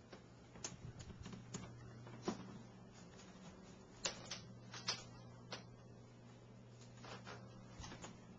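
Irregular light clicks and knocks, about ten, loudest around two seconds in and again between four and five seconds in, over a steady low hum.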